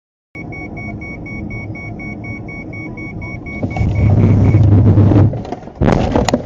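Road noise inside a moving car, with an electronic beep repeating about three times a second over a low rumble. The rumble swells loud for about a second and a half, and near the end comes a short loud burst with sharp cracks.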